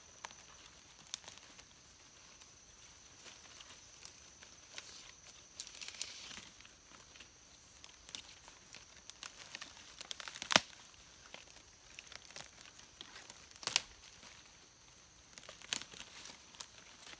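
Hands rustling through leaves and leaf litter and tearing a plant's roots out of the soil. Scattered small crackles run through it, with two louder sharp snaps in the second half.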